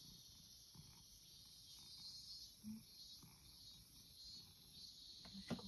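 Near silence with a faint, steady high-pitched chorus of insects, such as crickets, and a few sharp clicks near the end.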